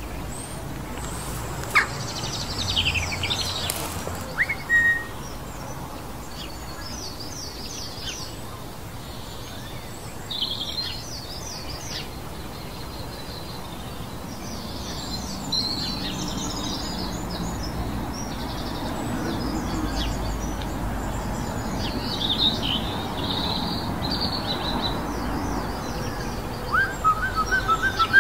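Wild birds chirping and singing in woodland: many short, high calls and trills come in bursts, over a steady low background noise. Near the end there is a louder, quick run of short, lower notes.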